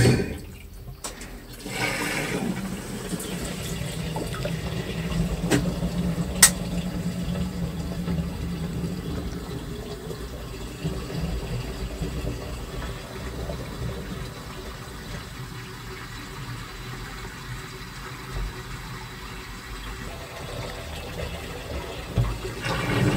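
Washing machine with water rushing steadily through the tub while the agitation pauses, with one sharp click about six seconds in; the rhythmic sloshing of the wash starts again near the end.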